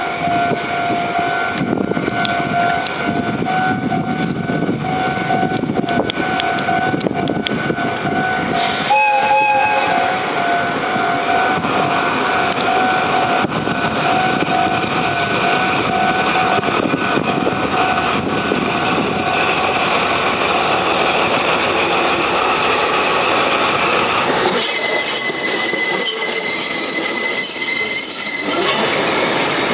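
Japanese level crossing alarm ringing with a pulsing electronic tone while ND552 diesel locomotives rumble past. The locomotive horn gives one short blast about nine seconds in, and a steady high wheel squeal comes in near the end.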